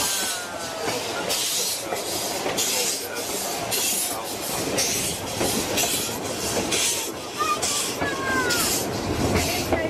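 Narrow-gauge steam locomotive chuffing in a steady rhythm of about one and a half exhaust beats a second, heard from an open carriage running behind it, with the rumble and rattle of the train on the track.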